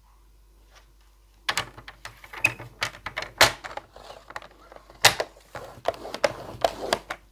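A scoring tool scraped along a groove of a cutting and scoring board, creasing a sheet of cardstock: an irregular run of short scrapes and clicks that starts about one and a half seconds in.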